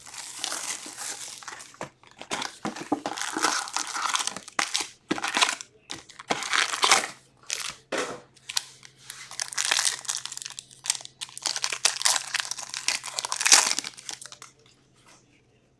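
Foil wrappers of Upper Deck hockey card packs crinkling and tearing in irregular bursts as the packs are handled and ripped open, falling quiet near the end.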